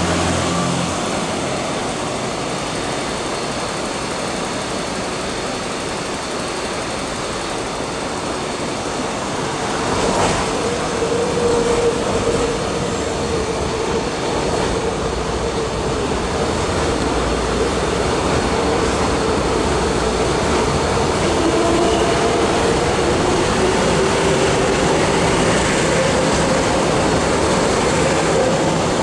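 MTR C-Train metro train running through a station platform without stopping: continuous wheel and running noise that swells about ten seconds in as the train comes alongside, with a steady whine over it.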